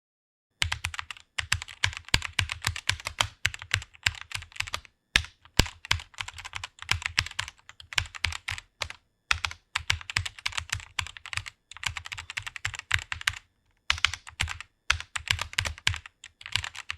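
Computer keyboard being typed on fast, rapid key clicks in runs broken by short pauses about five, nine and fourteen seconds in.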